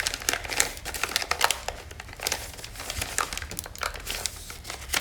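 Thin plastic sheeting crinkling and crackling in irregular bursts as it is peeled and pulled off a set, still slightly flexible resin casting.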